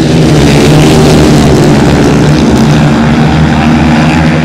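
Several 500 cc single-cylinder grasstrack solo motorcycles racing, their engines loud and steady.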